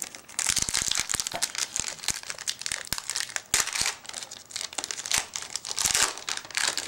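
Foil wrapper of a Bowman Chrome baseball card pack being torn open and crinkled as the stack of cards is slid out, a dense crackling with many sharp clicks.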